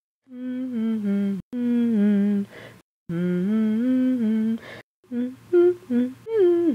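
A person humming a tune in short phrases, the pitch stepping up and down between held notes, with quicker short notes near the end.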